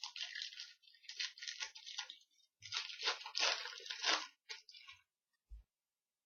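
Foil wrapper of a trading-card pack crinkling and tearing in irregular rustling bursts as the pack is opened, ending with a soft low thump.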